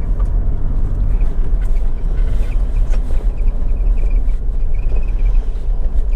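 Motor vehicle running, a steady low rumble of engine and road noise, with a few faint high chirps in the middle.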